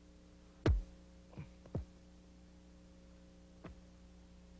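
Soccer ball thumping against a player's chest about a second in, followed by a few lighter knocks as it drops to the ground and feet. A steady low hum runs underneath.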